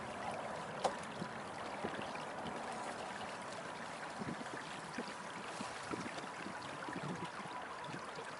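Water trickling and washing along the hull of a Beneteau First 20 sailboat, with a few light knocks scattered through.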